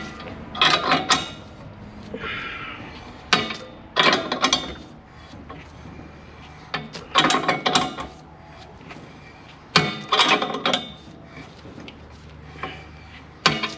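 Socket ratchet wrench clicking in short runs, each about a second long and coming roughly every three seconds, as it is worked back and forth on a bolt. The bolt is drawing a long old bushing out of a gyrocopter rotor hub bar, so progress is slow.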